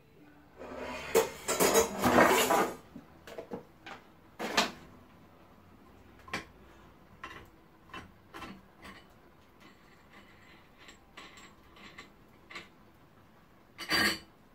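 Clattering and knocking of a stainless steel pot being handled at its rim: a loud rattling clatter about a second in, then scattered light metal taps and knocks, and another short clatter near the end.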